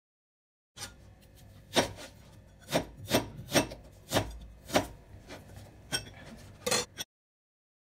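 Chef's knife slicing through a white onion on a plastic cutting board: a light scraping of the blade through the layers, with about eight sharp knocks as the blade hits the board, at an uneven pace.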